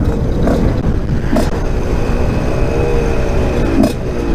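Husqvarna SMS 125 motard's single-cylinder four-stroke engine running through an HGS exhaust while being ridden. The engine note rises slightly and settles again, over a heavy low rumble of wind on the microphone.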